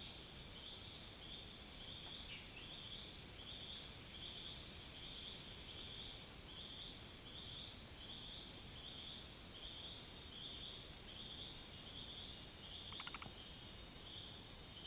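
Insect chorus: two steady high-pitched drones, with a shorter chirp repeating a little more than once a second beneath them. A brief pulsed call breaks in near the end.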